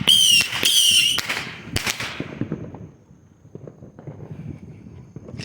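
Consumer fireworks going off: a quick run of short, high whistling shrieks mixed with sharp crackling pops in the first second or so. The crackling then thins out and fades away over the next two seconds.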